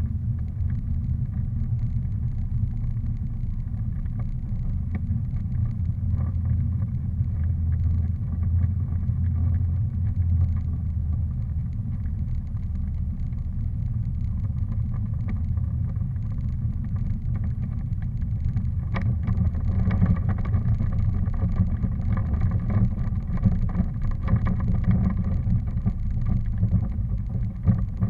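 Steady low rumble of wind and movement on a moving camera's microphone, with a single knock about nineteen seconds in.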